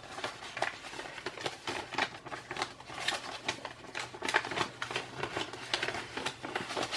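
Paper bills and envelopes being handled on a desk: light rustling with many small irregular ticks and taps.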